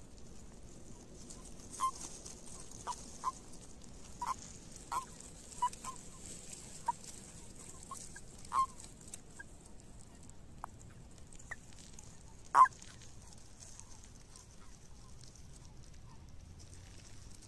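Common toads in a mating ball giving short, clipped calls, about a dozen scattered through, with one much louder call about twelve seconds in. These are typical of the release calls that male toads give when other males clasp them.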